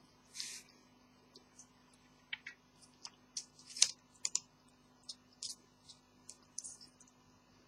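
Pet ferrets at their water: a short sneeze about half a second in, then a scatter of quick sharp clicks and taps, irregular and spread through the rest, the loudest a little under four seconds in.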